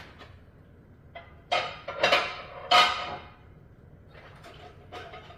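Metal pots and a pot lid clattering on a stovetop: a light knock, then two louder clanks with a brief metallic ring between about one and a half and three seconds in, and a few lighter knocks near the end.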